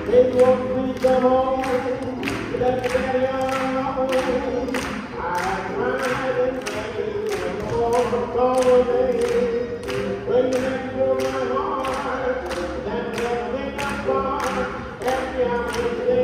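Swing band music for lindy hop, with sustained held notes over a steady beat of about two strokes a second.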